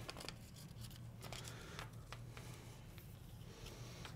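Faint scattered light clicks and paper rustling from a thin slip of paper tapped along the edge of an iPod Touch's metal frame, feeling for where it slips under: a check for a bent, lifted frame. A faint steady hum runs underneath.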